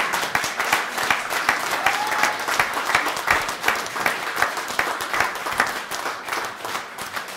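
A small group applauding with dense, irregular hand claps that die down toward the end.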